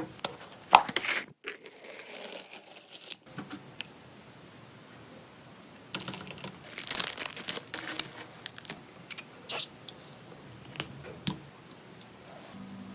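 Handling noises: scattered clicks and taps with rustling, tearing-like scrapes, busiest in a stretch about six to eight seconds in.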